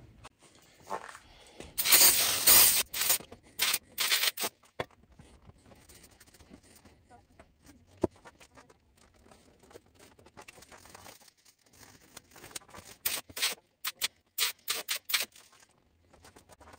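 Aerosol electrical-contact-cleaner degreaser hissing as it is sprayed on a steel barrel liner, with rag rubbing and scraping on the metal. One long spray comes a couple of seconds in, and a string of short bursts and rubs comes near the end. A single sharp click falls about halfway through.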